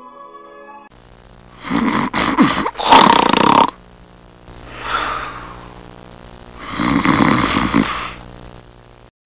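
A person snoring: two loud snores with a softer breath in between.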